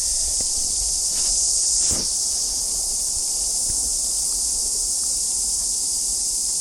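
Cicadas singing in chorus: a steady, shrill, high buzz that does not let up.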